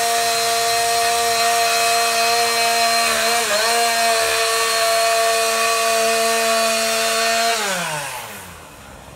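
Two-stroke chainsaw held at full throttle while cutting an overhead branch, its pitch dipping briefly about three and a half seconds in as the cut loads it. Near the end the throttle is released and the engine winds down toward idle.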